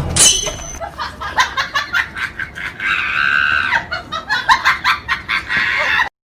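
Comedy laughing sound effect: quick bursts of giggling laughter with a drawn-out high-pitched squeal a few seconds in, cutting off suddenly near the end.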